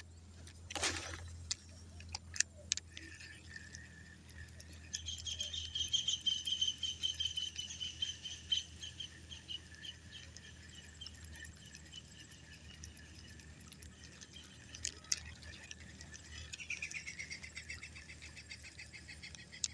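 A high-pitched, rapidly pulsing trill from a wild creature in the surrounding vegetation. It sets in about five seconds in, fades, and starts again near the end. About a second in there is a short swish followed by a few sharp clicks.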